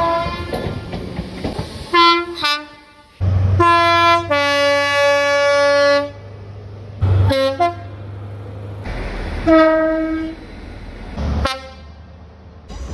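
A series of British train horn blasts from different trains: a couple of short toots, then one long blast of about three seconds that steps down in pitch, then more short blasts, over the low rumble of the trains.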